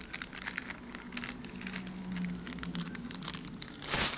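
Light clicks and rustling as a board game's box and packaging are handled, with a louder crinkling rustle near the end.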